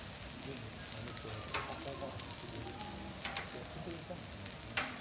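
A block of wagyu beef searing on a steel teppanyaki griddle: a steady sizzle of fat and juices spitting on the hot plate, with three sharper pops at roughly even intervals.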